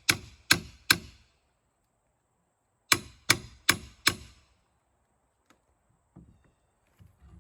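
A hammer striking a pry bar to drive it behind wooden door trim: three quick sharp blows, a pause of about two seconds, then four more. A few faint knocks follow near the end.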